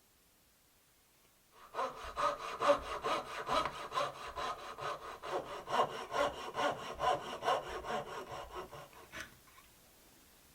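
Hand saw cutting wood in quick back-and-forth strokes, about two to three a second. It starts about two seconds in and stops about nine seconds in.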